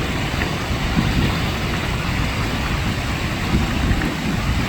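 Mountain stream running full after a rainy season, a steady rushing of water.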